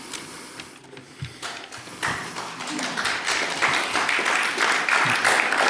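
An audience in a hall starts applauding about two seconds in, and the clapping builds steadily louder.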